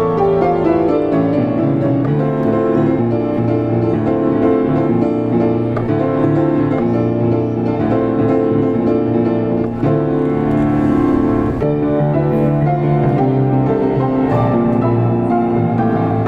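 Diapason grand piano played solo: a busy, continuous passage of dense chords and quick notes, with the low register strong throughout.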